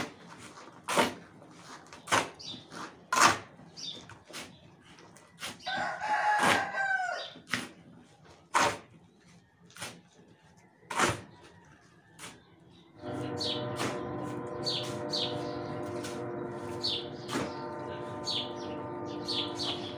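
Steel shovel biting into and tossing a dry sand-and-cement mix, a scrape about once a second. A rooster crows once, about six seconds in. From about thirteen seconds a steady ringing sound of many tones, with repeated short high chirps, takes over.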